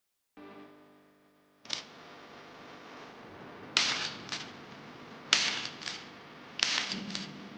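A brief fading musical chord, then sharp clacks that mostly come in pairs about half a second apart, the first of each pair louder, repeating about every second and a half.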